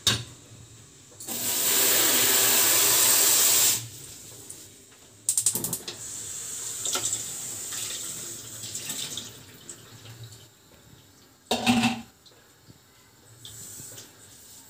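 Water gushing hard for a couple of seconds, then water poured from a plastic bowl into a stainless steel steamer pot for about four seconds. A single short knock comes near the end.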